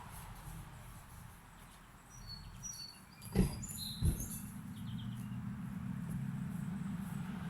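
Small birds chirping briefly in a few short high notes, with two sharp knocks about two-thirds of a second apart in the middle; a low steady hum comes in after them.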